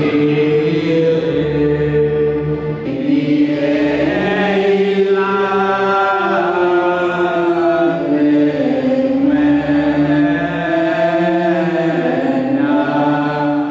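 A choir singing a slow hymn in long held notes.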